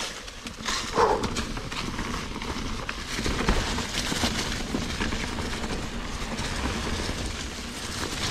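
Mountain bike rolling down a trail over leaves and gravel: steady tyre and trail noise with the continual rattle and clatter of the bike.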